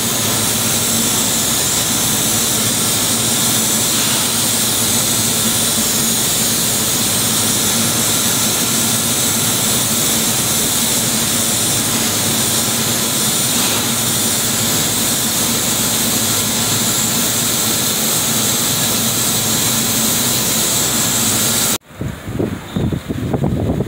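Steady, loud mechanical roar with a constant hum, the running noise of industrial plant machinery around the large ducting. Near the end it cuts off abruptly, giving way to gusty wind buffeting the microphone.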